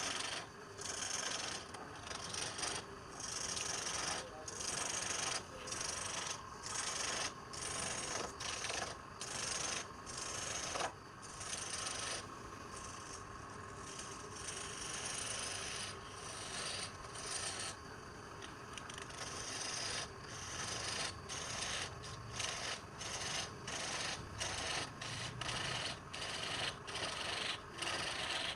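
Wood being rasped or sanded by hand in rhythmic back-and-forth strokes, about one and a half a second, with a steadier stretch of scraping in the middle.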